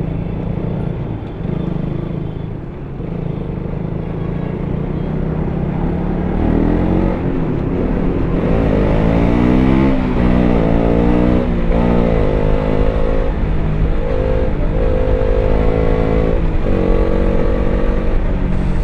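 KTM RC 200's single-cylinder engine heard through its stock exhaust. It runs at low revs, then from about six seconds in it accelerates up through several gears, each shift a brief drop in pitch. After that it holds a steadier, higher note.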